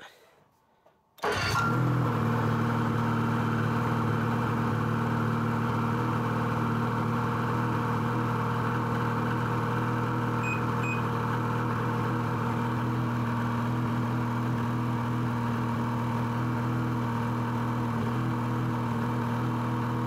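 Ski-Doo 600 HO E-TEC two-stroke twin snowmobile engine starting about a second in, catching at once, then idling steadily.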